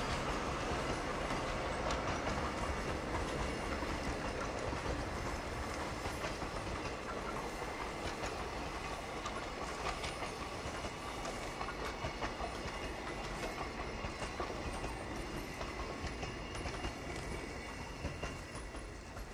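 Freight train of container flatcars rolling past on a curve, the wheels clicking over the rail joints. The sound fades slowly as the end of the train goes by and away.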